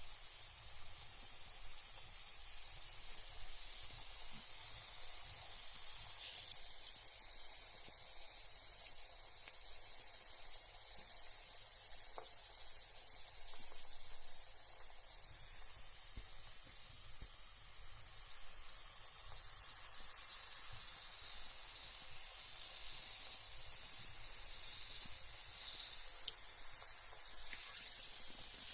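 Carbonated bath bomb fizzing in bath water: a steady, soft hiss of bubbles, with a few faint ticks here and there.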